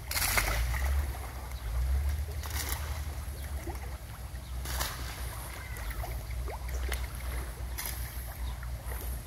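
Wind rumbling on the phone's microphone over a catfish pond, with about five short splashes as catfish take thrown chicken intestines at the water's surface.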